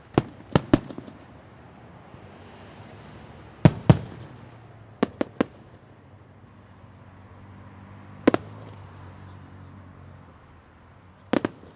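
Aerial fireworks bursting: about a dozen sharp bangs in clusters of two or three, each trailing off in a rumbling echo, with a low steady hum between them.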